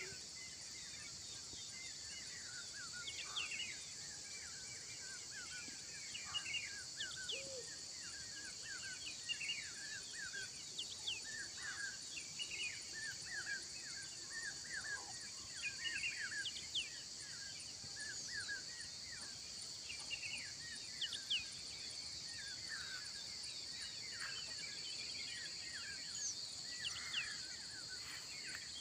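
A steady high-pitched chorus of insects, with many short bird chirps and whistles over it.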